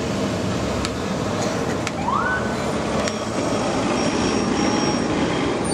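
Street traffic with engines running, and about two seconds in a single short rising siren chirp from a police vehicle.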